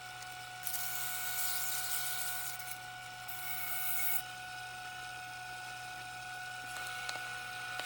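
Wood lathe running with a steady whine while sandpaper is held against the spinning wooden top, giving a hiss in two stretches during the first half.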